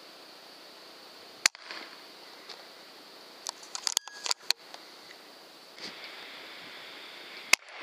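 Air rifle shots: a sharp crack about a second and a half in and another near the end, with a few scattered clicks and crackles between them over a steady faint hiss.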